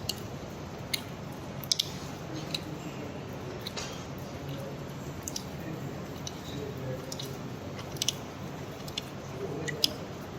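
Scattered sharp clicks and ticks of metal surgical instruments as a Steinmann pin is driven into a calf's tibia for intramedullary pinning, over a steady low hum.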